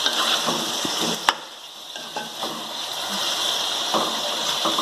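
Chicken pieces sizzling in hot oil in a metal kadhai as they brown, stirred with a spatula that scrapes and clicks against the pan. There is one sharp knock of the spatula on the pan about a second in, after which the sizzle drops for a moment and then returns.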